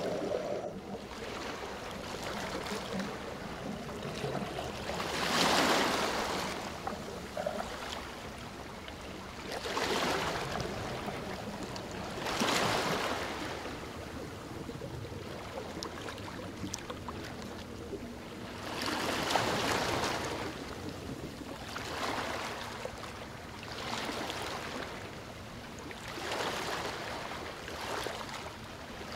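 Rushing water noise that swells and fades every few seconds, surging louder six or so times.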